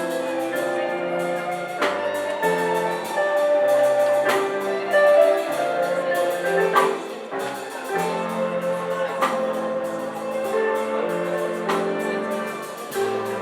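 Instrumental music: held chords that change every second or two over a steady beat, with a louder strike about every two and a half seconds.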